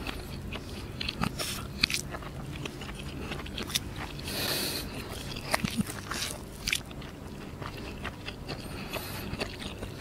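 Close-up mouth sounds of a man eating roti canai with fried egg: soft wet chewing punctuated by small lip smacks and clicks. He bites into the flatbread partway through.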